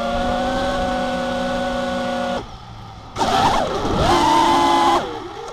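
FPV freestyle quadcopter's brushless motors and Gemfan propellers whining steadily, heard from on board the quad. About two and a half seconds in the throttle drops and the whine falls away. It then comes back louder, rising and falling in pitch with the throttle, and dies away near the end.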